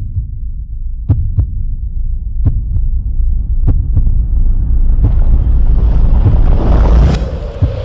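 Heartbeat sound effect in an intro sting: deep double thumps about every second and a quarter over a low rumbling drone. About halfway through, a rising swell of noise builds up to a sharp hit near the end.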